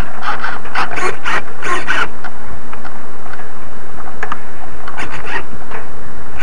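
Onboard sound of a radio-controlled sailboat under way: a loud, steady wash of wind and water noise. A quick run of clicks and rattles from the boat's deck fittings and rigging comes in the first two seconds, and a few more come about five seconds in.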